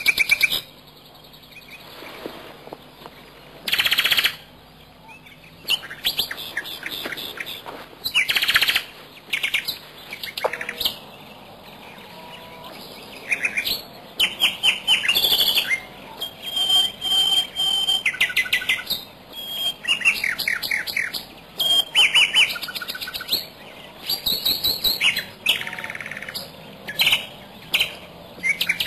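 Birds chirping and calling in short bursts of quick, high chirps, a second or two apart, with quieter gaps between them.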